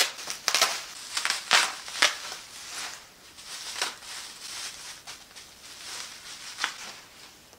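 Bubble wrap crinkling and rustling as a plastic model horse is unwrapped from it: a dense run of sharp crackles in the first couple of seconds, then softer rustling with a few scattered crackles.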